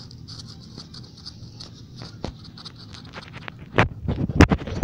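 Light clicks and taps from a hand working at a wooden block, coming thicker as it goes, then several louder knocks near the end.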